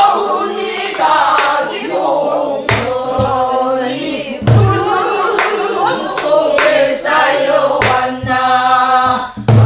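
A woman sings a Namdo folk song in the long-held, bending Korean folk vocal style, accompanying herself on a buk, a Korean barrel drum. Its stick strikes land at irregular intervals as sharp cracks and a few deep thumps.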